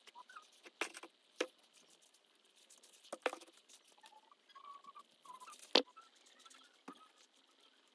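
Plastic flower pots being handled and set down: a few faint, scattered taps and clicks.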